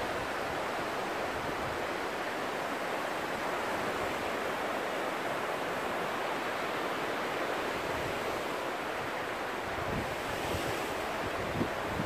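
Sea surf washing steadily against the shore, with wind buffeting the microphone in low gusts a couple of times near the end.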